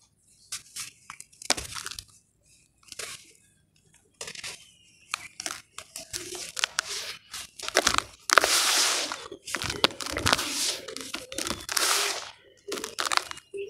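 Hands crumbling and squeezing clumps of dry ash in a plastic tub: a string of short, gritty crunches and crumbles. About eight seconds in comes a longer, louder stretch of crumbling.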